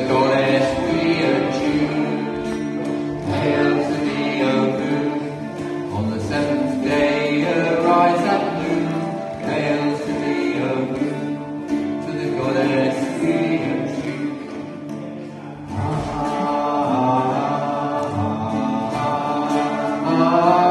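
A group of voices singing a sacred chant, accompanied by a bowed violin and a plucked long-necked lute.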